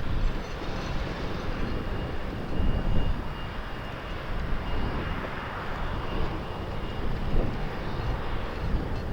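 Wind buffeting the microphone in a heavy, gusty rumble, with an aircraft's engines heard behind it as a broad hiss that swells and fades around the middle.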